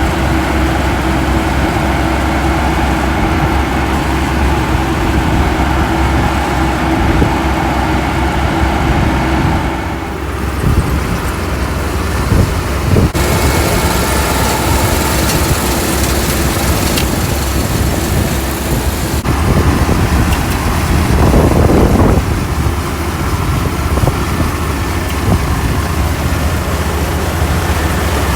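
Rice combine harvester running, a steady engine drone with a low hum and mechanical noise, shifting abruptly a few times.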